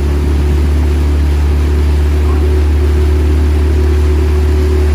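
Outboard motor of a boat running steadily at constant speed, a continuous low drone.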